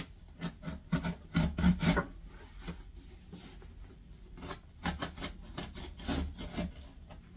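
Cardboard and packaging rubbing and scraping in irregular short strokes as hands work inside a large cardboard shipping box, loudest in a quick cluster between one and two seconds in.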